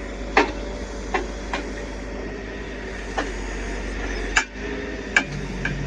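Sharp metal clanks on a logging truck's stakes, about six of them spread over several seconds, the loudest a little past the middle. Under them a truck's diesel engine runs steadily.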